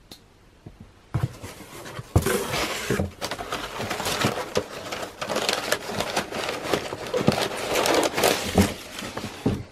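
Crumpled brown kraft packing paper rustling and crackling as hands pull it out of a cardboard shipping box. It starts about a second in and runs on as a dense stream of crinkles.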